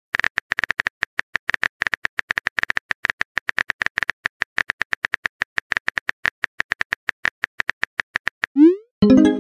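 Simulated smartphone keyboard typing clicks, rapid and steady at about eight a second, as a chat message is typed out. Near the end a short rising swoosh sounds as the message is sent, followed by a chiming message notification tone.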